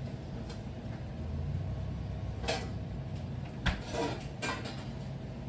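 Steady low background hum with a few short knocks and clatters, the sharpest about two-thirds of the way in.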